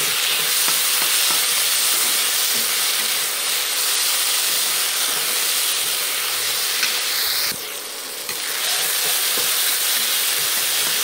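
Chopped tomatoes and onion paste sizzling in hot oil in a kadhai, stirred with a spatula that scrapes the pan now and then. The steady hiss dips briefly a little past halfway.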